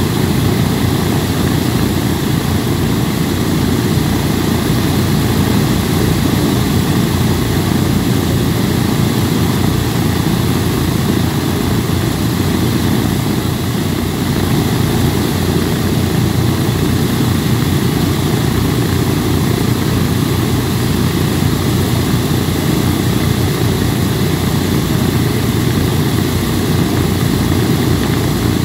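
Boeing B-17 Flying Fortress's four Wright R-1820 Cyclone nine-cylinder radial engines running steadily on the ground, a dense, even propeller-driven rumble with no change in power.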